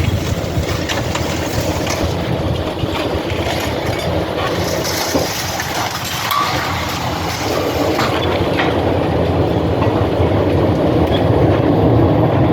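Building demolition: a heavy machine's engine rumbling steadily under the repeated crunching, cracking and clattering of broken building materials, growing somewhat louder in the second half.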